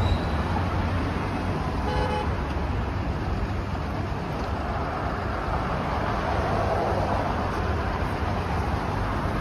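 City road traffic at a busy intersection: a steady rumble of cars driving through. About two seconds in, a vehicle horn gives one short toot.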